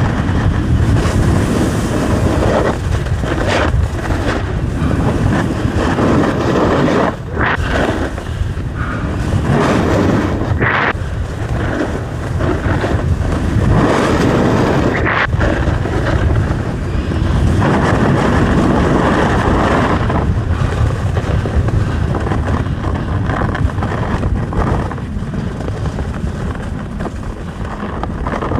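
Wind buffeting the microphone in a continuous low rumble while riding downhill, mixed with the scraping hiss of edges over hard, icy snow that swells and fades with the turns.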